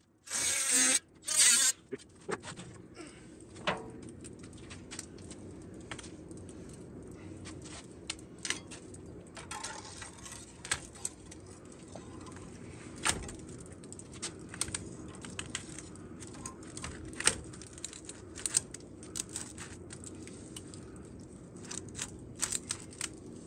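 Metal clinks and clanks of black chimney pipe sections being handled and fitted together, scattered over a steady low hum. A few short, loud, hissing bursts come in the first two seconds.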